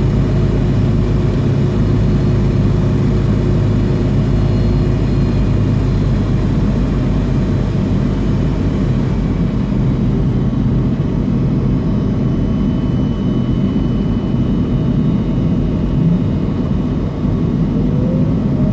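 Steady low rumble of an MD-80's rear-mounted Pratt & Whitney JT8D jet engines running at low ground power, heard from inside the passenger cabin.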